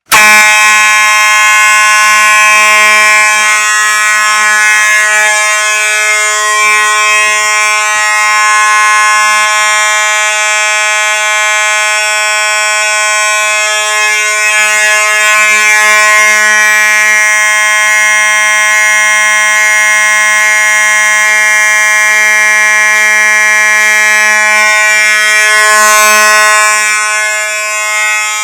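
Simplex fire alarm switching on abruptly and sounding one loud, steady, continuous tone without pulsing.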